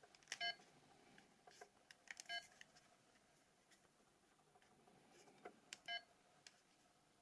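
Nokia 282 mobile phone keypad beeping as its buttons are pressed: three short key beeps a second or two apart, with faint key clicks in between.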